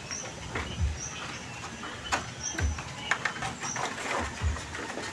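Irregular knocks and dull thumps of bamboo poles and slats being handled and pressed into place on a bamboo wall. A bird gives short high calls about once a second in the background.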